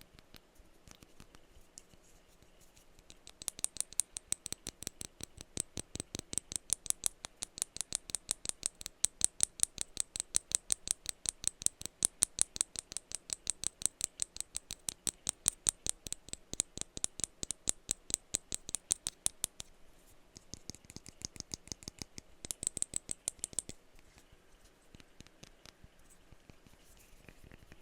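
Fast, even tapping on a perfume bottle, about five crisp taps a second. It starts a few seconds in and eases off about two-thirds of the way through, with a brief quick flurry of taps near the end.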